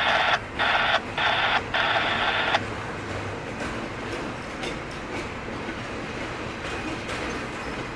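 Double-stack container cars of a freight train rolling past with steady wheel-on-rail noise and a few faint clicks. Over the first two and a half seconds a louder, tinny radio-scanner hiss cuts in and out four times.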